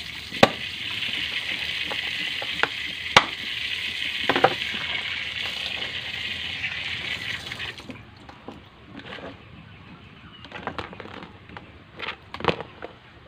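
Water running from a tap into a stainless sink as a steady hiss, cut off suddenly about eight seconds in. Sharp knocks and clicks of a knife and hard lobster shell against a cutting board come through it and continue after the water stops.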